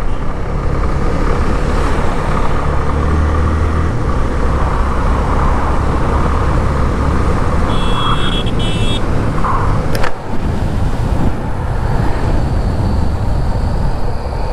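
Yamaha FZ25 motorcycle's single-cylinder engine running at a steady cruise, with wind rushing over a helmet-mounted action camera. A short, high beep comes about eight seconds in, and a sharp click about two seconds later.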